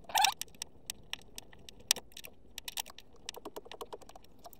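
Flathead screwdriver backing out a sun visor mounting screw: a run of small, irregular metallic clicks and ticks, with one sharper click about two seconds in.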